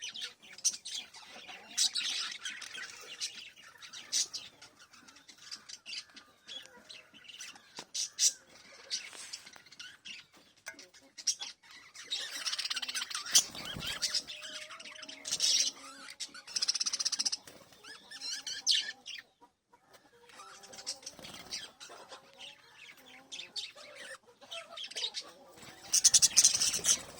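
Several small pet parrots chirping and squawking in busy overlapping bursts, with short pauses between spells and a louder burst of chatter near the end.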